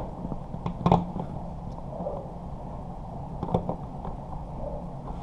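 Plastic faceplate screws being driven by hand into a mud ring: a few light clicks and scrapes over a steady low hum.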